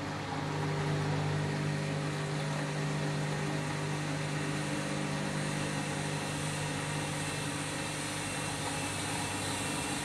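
Candy washing machine carrying a big, overloaded load, running into its spin: a steady motor hum with a faint whine over it, easing a little about six seconds in.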